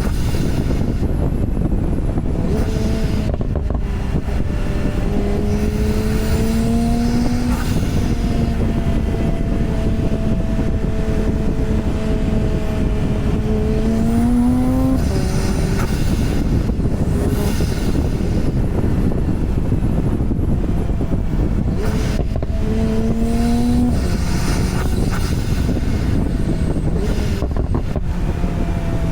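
Porsche 991 Turbo's twin-turbo flat-six engine pulling under load over steady road and wind noise. Its pitch climbs and drops suddenly twice as it shifts up, about halfway through and again about three quarters of the way through, with steady cruising in between.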